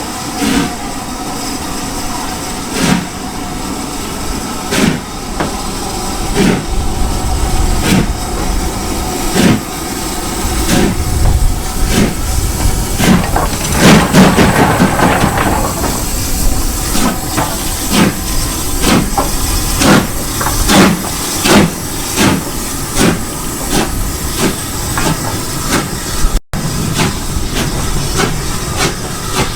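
Steam-hauled train on the move, most likely LNER Thompson B1 class 4-6-0 61306 Mayflower, with steam hissing throughout. Regular knocks come about every one and a half seconds at first and quicken to about one a second. The hiss swells about halfway through.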